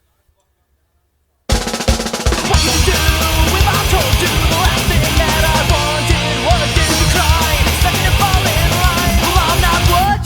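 Silence for about a second and a half between songs, then a loud punk rock band comes in at once: drum kit with rolls and cymbals under bass and guitars, with a melodic lead line on top. The band cuts out briefly near the end.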